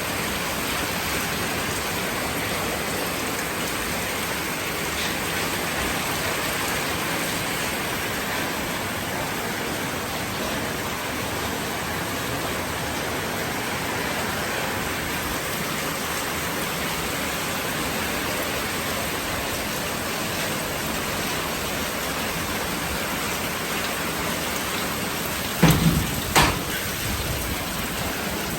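Steady hiss of rain. Near the end come two short, loud thumps about half a second apart.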